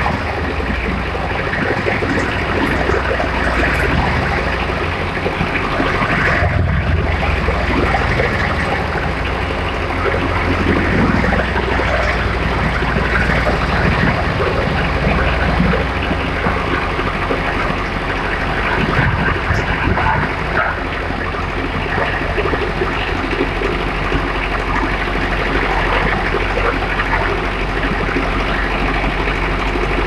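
Diesel-engined mobile wood chipper running loudly, its engine holding steady under a constant crackle of branches being fed in and chipped.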